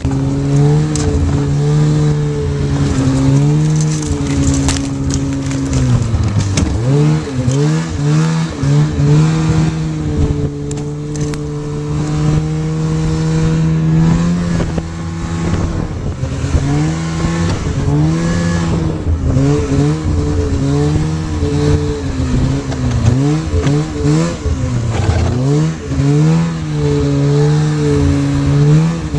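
Polaris snowmobile engine running under way, its pitch holding steady for stretches and repeatedly dipping and climbing back as the throttle is eased off and opened again, most often from about six seconds in to ten and again after fourteen.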